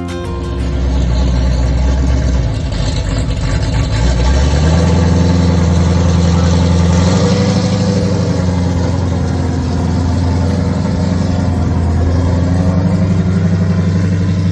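Ford Gran Torino's freshly overhauled engine running, picking up revs about two seconds in and again about four seconds in, then holding steady.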